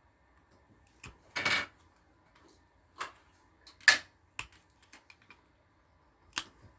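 A plastic bottle cap being cut and handled: half a dozen separate sharp clicks and cuts, with one longer scraping cut about a second and a half in.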